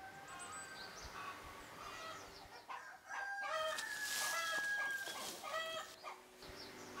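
A rooster crowing near the middle, one long drawn-out call, over small birds chirping throughout.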